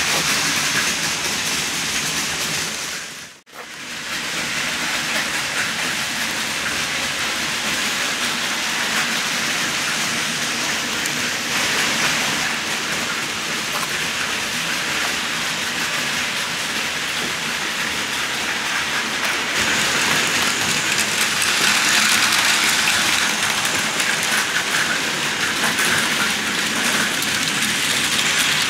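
Model trains running on track: a steady whirring, rattling noise from a battery-powered Plarail Advance train's gear motor and an N-gauge electric model train. The sound drops out briefly about three seconds in and gets louder in the last third.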